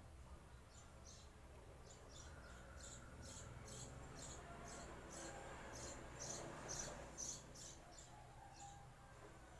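Quiet room with high, short chirps of a small animal repeating a few times a second, and a soft, faint breath sound in the middle: a slow exhale through pursed lips during a demonstration of pursed-lip breathing.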